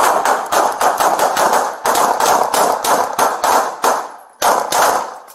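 Rapid handgun fire, about five shots a second, pausing briefly about four seconds in before the shooting resumes.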